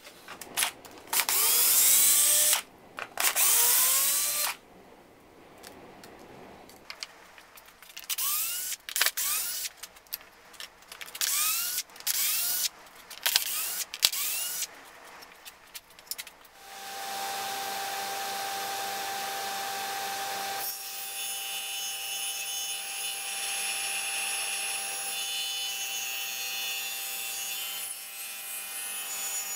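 Cordless drill driving screws into wood in a series of short bursts, each with a whine that rises in pitch as the motor spins up. About 17 seconds in, a table saw starts and runs with a steady hum, then cuts into the wood a few seconds later.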